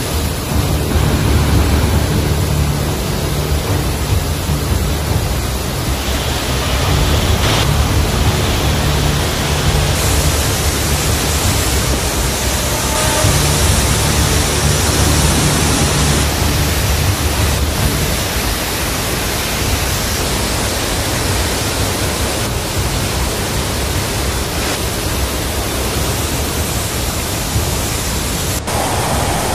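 Steady rushing of floodwater jetting through the Three Gorges Dam's spillway gates and crashing into the river below, with music faintly underneath.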